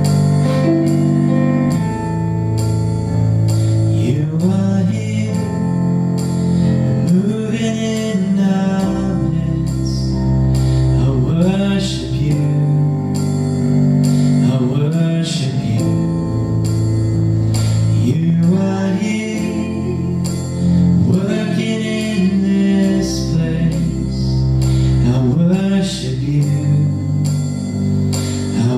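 A worship song: a singer over a band with sustained bass and chords and a steady percussion beat, the voice coming in a few seconds in.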